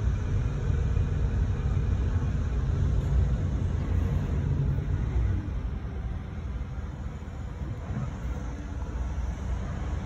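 Low, steady vehicle rumble heard from inside a car on the road, easing a little about halfway through.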